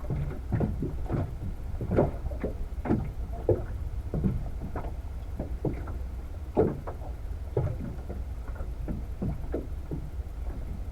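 Water slapping and lapping against the hull of a small fishing boat in short, irregular splashes, over a steady low rumble.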